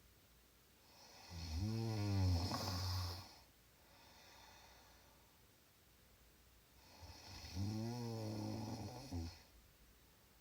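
Snoring: two long, loud, rattling snores about five and a half seconds apart, each lasting about two seconds.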